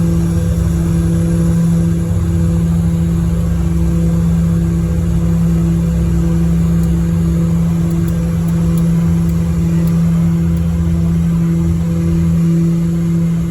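Beechcraft King Air's twin Pratt & Whitney PT6A turboprop engines and propellers running at takeoff power: a loud, steady drone with a strong low propeller hum.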